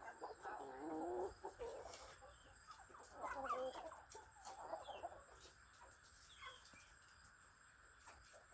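Chickens clucking in short bursts, in the first second and again from about three to five seconds in, then quieter.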